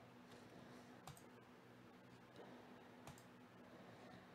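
Near silence with a few faint computer mouse clicks, spaced a second or more apart, as a web page's randomize button is clicked again and again; a steady low hum runs underneath.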